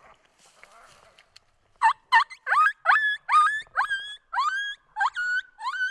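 Coyote-style yipping: a fast run of loud, rising yelps, about three a second, starting about two seconds in. Each one sweeps up in pitch and then holds briefly.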